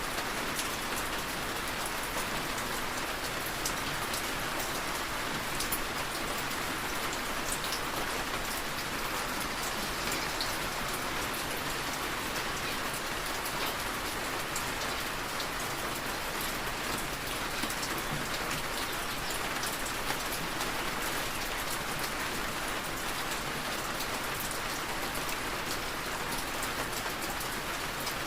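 Steady rain falling, an even hiss with many small drop ticks spattering on surfaces.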